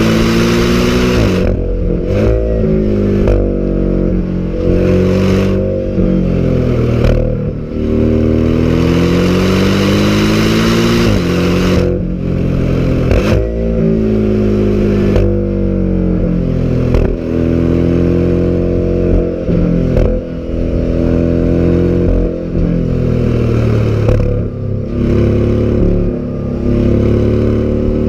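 Porsche sports car's engine and exhaust under hard acceleration, the pitch climbing through each gear and dropping sharply at every gear change, several times over, with wind and road noise beneath.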